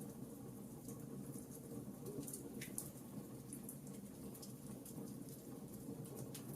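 Campfire burning, crackling with frequent small sharp pops over a steady low rumble of the flames.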